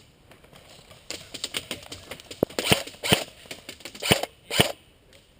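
A run of small clicks, then several sharp, loud cracks about half a second to a second apart: airsoft guns firing single shots.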